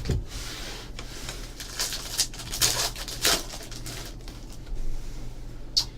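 Football trading cards and their pack wrappers being handled: scattered light rustles and clicks as cards are slid and sorted, over a steady low hum.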